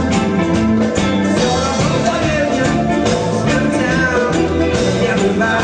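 A rock band playing live with drums, bass and guitar/keys, filling the instrumental gap between sung lines of the chorus.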